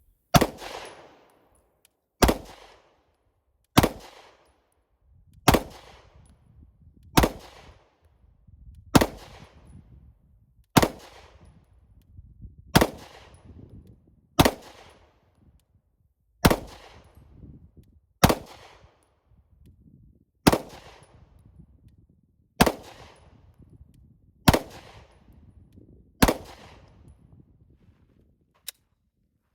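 Fifteen 9mm shots from a Walther PDP F Series pistol, fired slowly and evenly, about one every two seconds, each followed by a short echoing tail. A short click sounds near the end.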